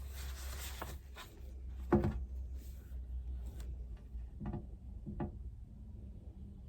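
Desk-work handling sounds: a brief scratchy rustle, then a few separate soft knocks of small objects set down on a desk, the loudest about two seconds in, over a low steady hum.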